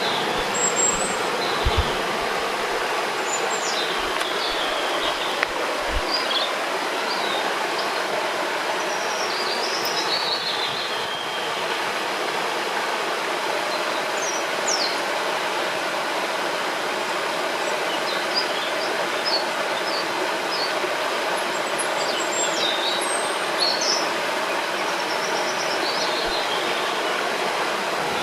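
Steady rushing of a flowing river, with small birds chirping and singing in short, high phrases throughout.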